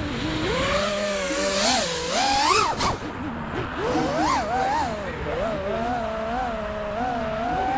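FPV quadcopter's brushless motors and propellers whining, the pitch surging up and down with the throttle. The whine climbs to a peak and cuts back sharply about three seconds in, then rises again near the end.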